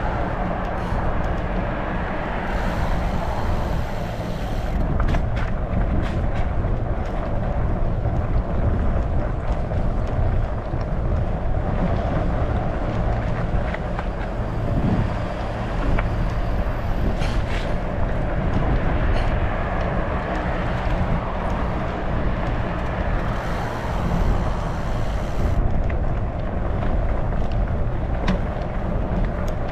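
Continuous riding noise from a Trek Farley 9.6 fat bike under way: rumbling road noise with wind on the microphone, steady and without a break.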